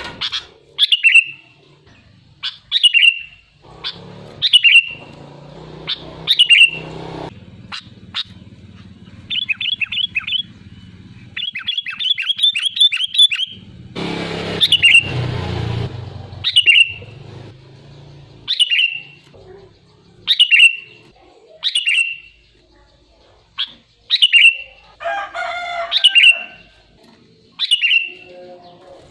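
Sooty-headed bulbul (kutilang) calling: a short, sharp note repeated about every two seconds, with quick runs of rapid notes about ten seconds in. A faint low hum sits under the calls through the middle stretch.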